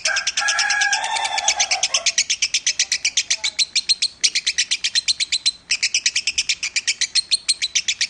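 Pet lovebird singing a long, rapid chattering trill of short high chirps, about eight or nine a second, with two brief breaks about four and five and a half seconds in. A lower, held tone sounds under it for the first two seconds.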